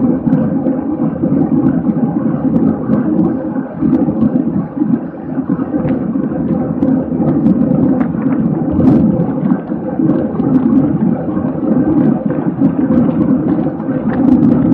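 Wind rushing over the microphone of a camera on a bicycle moving at racing speed: a steady low rumble with a faint steady hum and small clicks scattered through.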